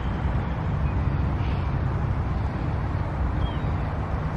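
Gusty wind rumbling on the microphone, with a steady hiss of wind over the lake behind it.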